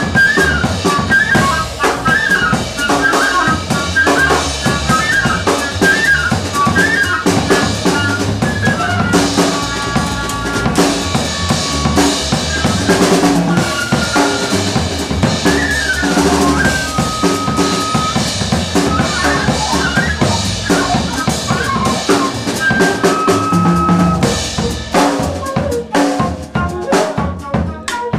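Live jazz band: a C flute plays fast runs and some long held high notes over bass and a busy drum kit. Near the end the flute drops out and the drums carry on alone with dense fills.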